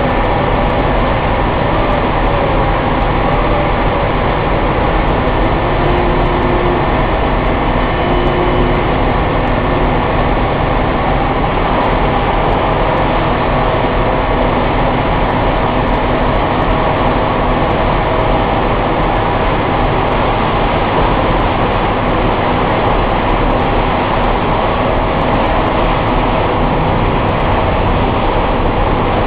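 Snack production line machinery running, a steady, even mechanical noise without a break.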